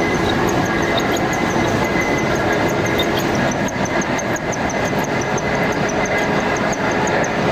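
Metal-cutting machine tool running steadily, with a faint high whine and a rapid light ticking, about five ticks a second.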